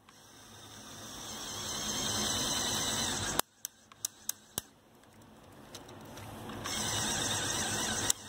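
A LEGO Power Functions medium motor drives 3D-printed screw gears to slide the backhoe's rear arm. It runs in two spells, each growing louder and cutting off suddenly, with a few sharp clicks between them. The slide runs stiffly, which the builder puts down to drag from the pneumatic hoses crowded around it.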